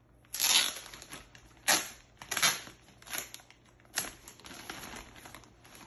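Packaging crinkling and rustling as it is handled, in about five short, sharp bursts with quieter rustling between them.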